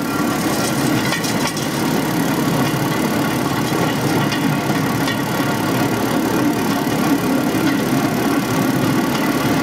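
Motorized rail trolley's engine running with a steady drone as the trolley travels along the rails.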